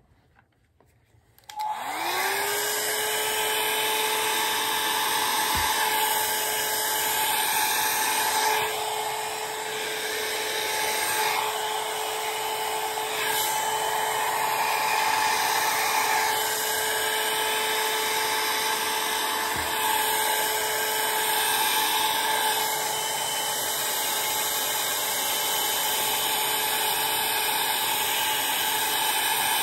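Hot-air brush switched on about a second and a half in: its motor hum rises in pitch as it spins up, then runs steadily under a constant rush of blown air as it is drawn through hair.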